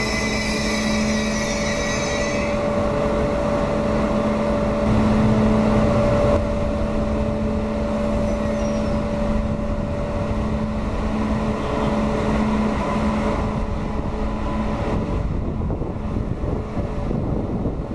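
High-speed electric train at a station: high-pitched wheel squeal that stops about two and a half seconds in, then a steady hum over a low rumble.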